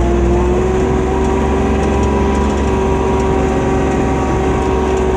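ATV engine running at a steady speed, its note holding nearly constant.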